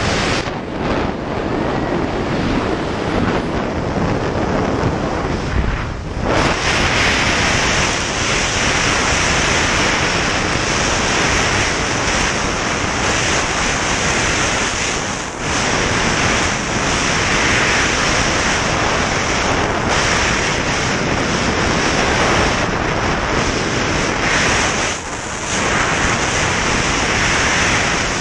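Freefall wind rushing over a pole-mounted action camera's microphone: a loud, steady blast of noise that dips briefly three times.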